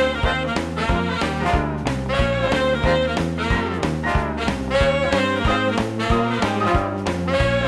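Swing-style music with brass and a steady beat.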